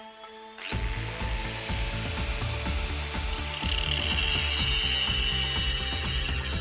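A workshop tool starting under a second in and running with rapid clicking, over background music.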